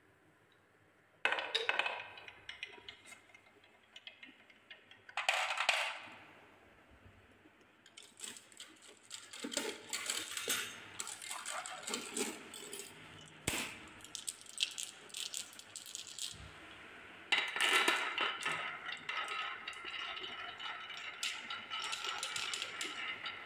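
Glass marbles and wooden balls rolling and clacking along a handmade wooden marble run, many small clicks as they hit the wood and each other. About seventeen seconds in, it turns into a dense, steady rattle as a row of balls runs down a wavy wooden track.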